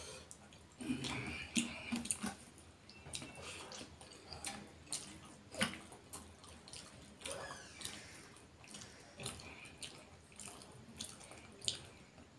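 Fingers picking apart a piece of rohu fish in curry and working it into rice on a plate, making irregular wet, sticky clicks and squelches.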